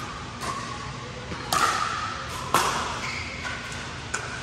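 Two sharp knocks about a second apart, each with a short ringing after it, among a few fainter taps.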